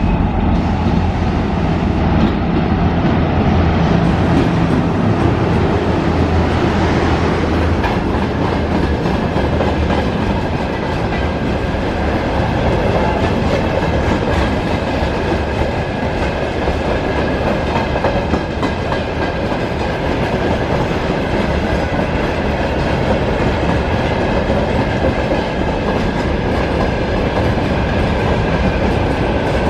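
A VL10 electric locomotive hauling a long freight train passes, with a steady low hum for the first several seconds. Then a continuous rumble of freight wagons rolling by, their wheels clicking over the rail joints.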